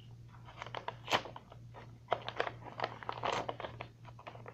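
Paper mailing envelope being slit and torn open with the cutting edge of a flat metal multi-tool: irregular scratchy rasps and crinkles, the loudest about a second in, over a low steady hum.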